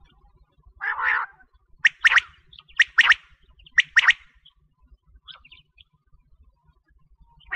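Female common quail calling: a short rough burst about a second in, then three sharp two-note calls about a second apart, followed by a few faint chirps.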